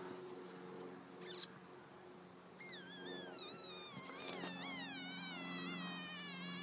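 Frog's distress scream as a cat paws at it: a loud, high-pitched, wavering wail that slowly falls in pitch. It starts about two and a half seconds in and lasts about four seconds.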